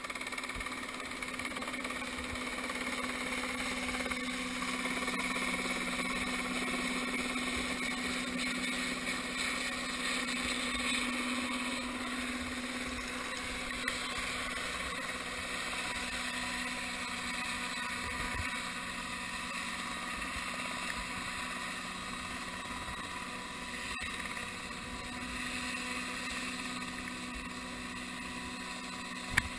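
Dynali H3 ultralight helicopter in low flight and hover, its engine and rotor giving a steady drone. A sharp click comes just before the end.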